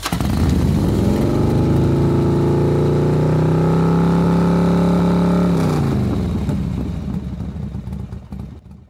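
Motorcycle engine revving up and holding steady high revs, then dropping in pitch about halfway through and fading away.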